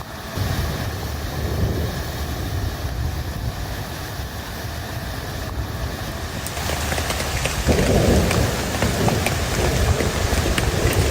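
A rainstorm: steady rain with a low rumble underneath. About six and a half seconds in, the rain grows louder with sharp drop ticks, and it swells louder again about a second later.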